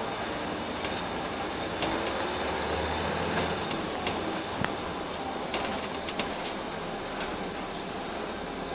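Inside a Wright Eclipse single-deck bus on the move: steady engine and road noise, with a scatter of sharp rattles and knocks from the cabin fittings.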